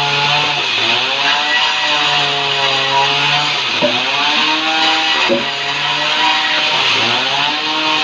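Band sawmill cutting a sengon log: the blade hisses steadily through the wood over the hum of the machine driving it, whose pitch sags and recovers four times as the cut loads it.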